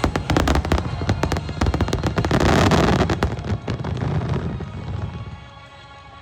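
Fireworks bursting: many sharp cracks in quick succession build to a loud, dense peak about halfway through, then die away about five seconds in. Music plays underneath.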